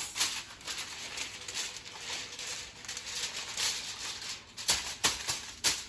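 Heavy-duty aluminum foil crinkling and rustling as hands press and fold it around the rim of a half sheet tray, with a few sharper crackles near the end.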